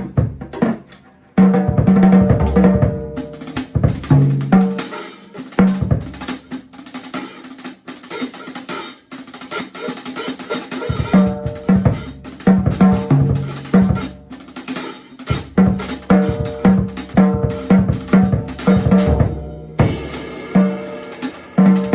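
Music led by a drum kit: a rapid, even beat of bass drum, snare and cymbals over pitched bass and chord notes.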